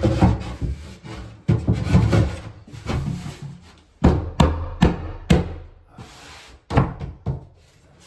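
A solid poplar shelf being forced into place: wood scraping and rubbing against wood, with a string of irregular knocks and thuds.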